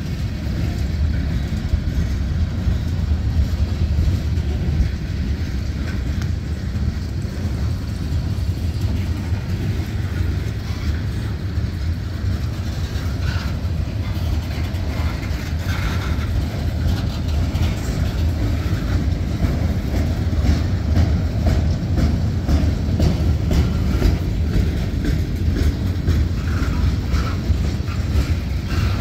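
Freight cars of a Norfolk Southern manifest train (tank cars, covered hoppers, an autorack) rolling past: a steady low rumble of steel wheels on rail with constant clicking, and a few brief high squeaks about halfway through and near the end.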